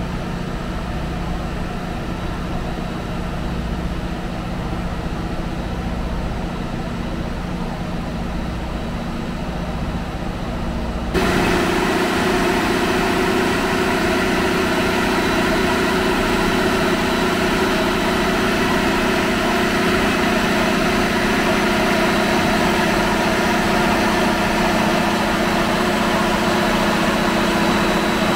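Steady drone of running diesel machinery in a ship's engine room, including Yanmar diesel generator sets. About eleven seconds in, the drone suddenly becomes louder and brighter, then holds steady with a constant hum.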